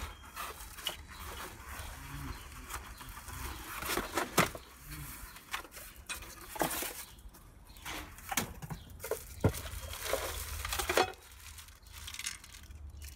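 Cardboard packaging rustling and scraping and plastic wrap crinkling as kettle-grill parts are unpacked from a shipping box, with scattered light knocks and clicks of the parts being handled.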